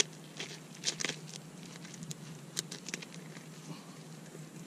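Knife cutting into a freshly caught amberjack on stone paving: irregular sharp clicks and wet crunches as the blade works through the fish and the fish is handled.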